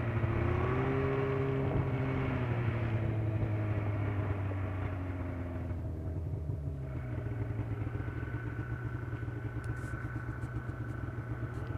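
Snowmobile engine running at low speed, its pitch rising and then falling back a second or two in before settling into a steady idle. A few light clicks near the end as the camera housing is handled.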